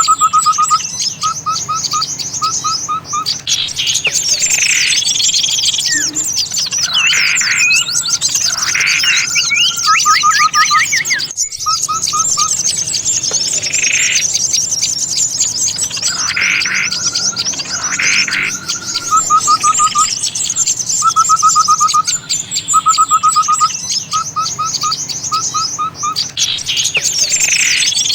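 Bird-lure recording for small songbirds: a dense chorus of overlapping chirps with a short trill repeated in quick groups and louder single calls between. It breaks off for an instant about eleven seconds in, then carries on.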